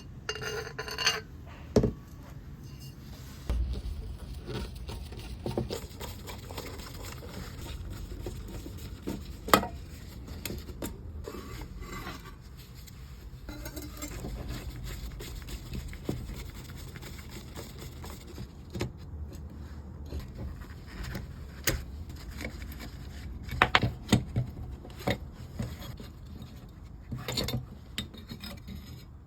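Workbench handling sounds: scattered clicks, knocks and scrapes of tools and metal parts over a steady low hum, with a few sharper clinks near the middle and a cluster of them towards the end.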